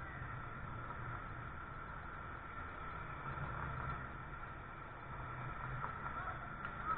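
Steady outdoor background hum and hiss picked up by a security camera's low-quality microphone, with a thin steady whine running through it. There are no distinct events.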